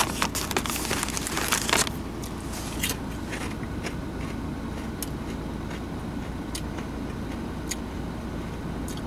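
Crunchy potato chips being chewed and the crisp packet crinkling: a dense run of crackling for about two seconds, then scattered single crunches. Under it is the low steady hum of a car engine running.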